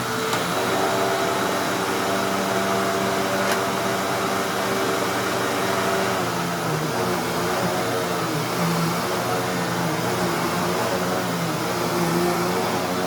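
Hoover Tempo upright vacuum cleaner running: a steady motor hum whose pitch starts to waver about halfway through, with a couple of faint clicks.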